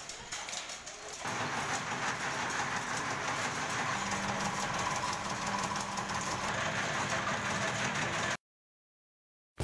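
Cashew processing machinery running in a plant: a steady mechanical clatter and hum that changes character about a second in, with a low steady hum added from about four seconds. It cuts off abruptly over a second before the end.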